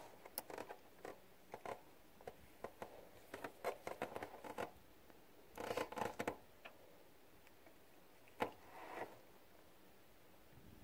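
Faint handling noise: scattered light clicks, scratches and rustles, most dense about six seconds in, with one sharp click at about eight and a half seconds.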